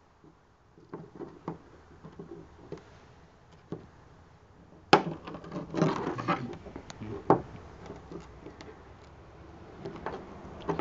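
Handling noise from a Ford oval emblem being worked by hand close to the microphone: scattered light taps, clicks and scrapes, with a sharper knock about five seconds in followed by a quick cluster of taps.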